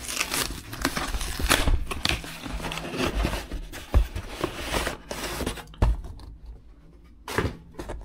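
A posted parcel being opened by hand: its packaging rustling and ripping, with a few knocks. The handling is busy for the first six seconds or so, then thins to scattered short rustles.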